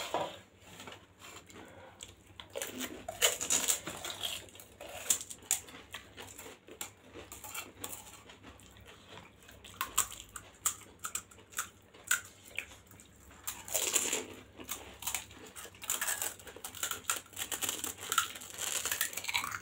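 Eating panipuri: crisp, hollow puri shells crunching between the teeth, with wet chewing of the water-filled shells. There are many short, irregular crunches, heaviest about three seconds in and again near fourteen seconds.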